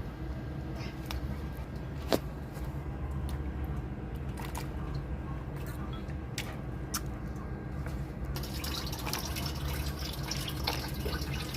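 Water trickling and dripping in a kitchen sink, with scattered small clicks and knocks. About eight seconds in the flow gets fuller and louder, like a tap turned up.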